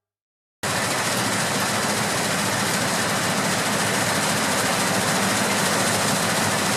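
Heavy harvest machinery running steadily, a dense mechanical noise with a low engine hum. It cuts in abruptly just over half a second in.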